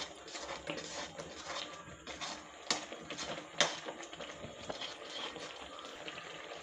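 Metal spatula scraping and clinking against a steel kadhai while spices are stirred into a frying tomato-onion masala, over a light sizzle of the oil. Two sharper clinks come about two and a half and three and a half seconds in.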